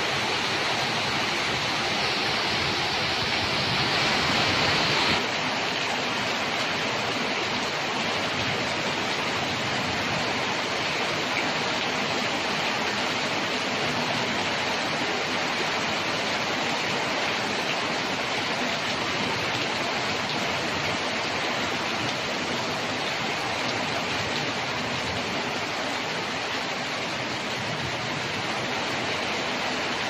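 Heavy thunderstorm downpour: a dense, steady rush of rain, a little louder in the first five seconds.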